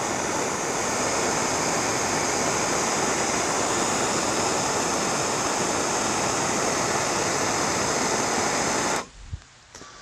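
Handheld gas torch burning with a steady hiss, its flame played over the blades of pruning shears. It is shut off abruptly about nine seconds in.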